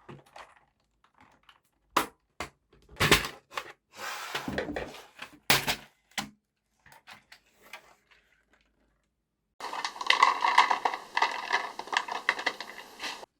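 Plastic parts of a vintage mechanical keyboard clicking and clattering as it is taken apart: separate sharp clicks and short rattles. This is followed by about four seconds of steady rasping that cuts off suddenly near the end.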